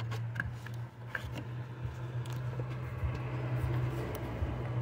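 A few faint clicks and light rustling as a hand works the rubber boot back on the alternator's output terminal, over a steady low hum.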